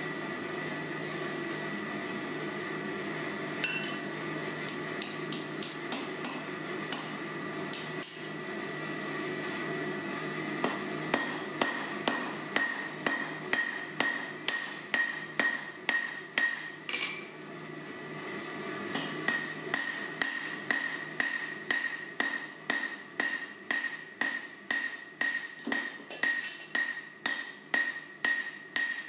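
Hand hammer striking a hot rivet on an anvil, peening it down to rivet forged steel parts together. A few scattered blows come first, then steady strikes about two a second with a short pause partway through, over a steady background hiss.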